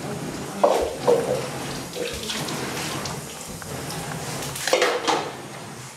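Tap water running into a concrete kitchen sink during washing-up, with sharp knocks of kitchenware against the sink, twice about a second in and twice near the end.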